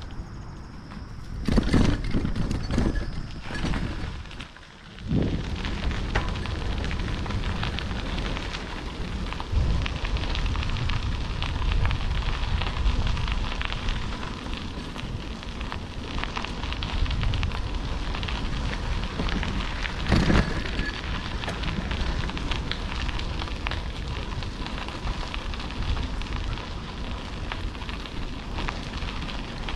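Bicycle tyres crunching and crackling over a gravel rail trail while riding, with wind rumbling on the action camera's microphone. A few louder jolts come in the first few seconds and once more past the middle.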